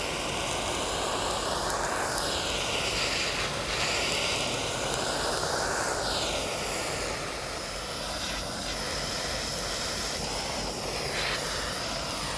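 Handheld gas torch burning with a steady roaring hiss as its flame caramelizes a honey and brown sugar glaze on a ham. The tone of the roar slowly rises and falls as the flame is swept over the meat.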